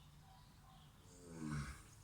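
A sleeping animal snoring once, about a second in: a single rasping snore that falls in pitch, over a faint steady low hum.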